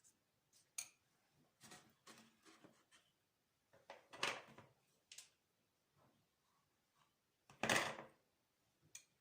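Quiet kitchen handling sounds while stuffing eggplants for makdous: scattered light clicks and knocks, with two louder brushing scrapes about four seconds in and near eight seconds.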